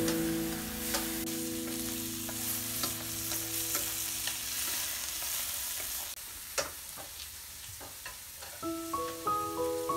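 Shrimp sizzling as they fry in oil in a nonstick frying pan, with chopsticks stirring and clicking against the pan. Background music fades out in the first few seconds and comes back near the end.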